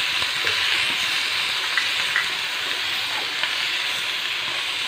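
Chicken pieces, shallots and chillies sizzling in hot sesame oil in a frying pan as they are stirred with a wooden spatula: a steady frying hiss with a couple of light knocks about two seconds in.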